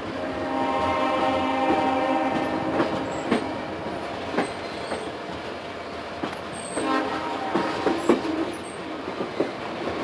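Locomotive horn of a passenger train sounding one long blast starting about half a second in, then a shorter blast about seven seconds in. Underneath are the steady rumble and scattered clicks of the rail car's wheels on the track.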